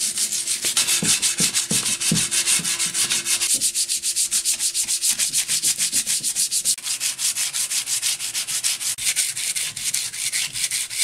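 Sandpaper rubbed by hand over the painted wooden frame of a chair in quick back-and-forth strokes, about five a second, scratchy and rhythmic. It is taking off the old paint so the new coat will grip.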